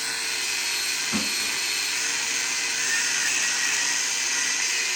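A high-speed power tool running steadily, giving a constant whine over a hiss, as the block is worked on.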